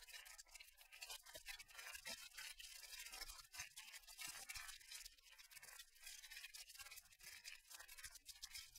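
Near silence, with a faint crackling hiss of small irregular ticks.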